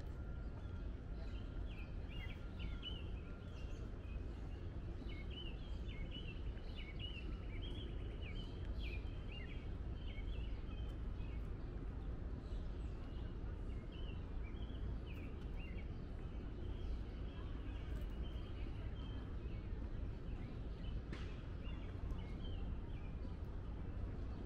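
Songbirds chirping in quick, rapid runs over a steady low outdoor rumble. The chirping is busiest in the first ten seconds or so and thins out after about seventeen seconds.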